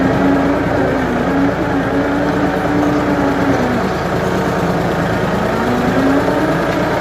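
Ford 550 backhoe's engine running steadily; its pitch sags about four seconds in and comes back up near the end.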